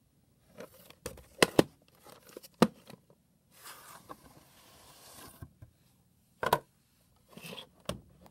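A plastic VHS cassette and its cardboard slipcover being handled: a series of sharp clicks and knocks, with a rustling, sliding scrape of nearly two seconds in the middle as the cassette comes out of the sleeve.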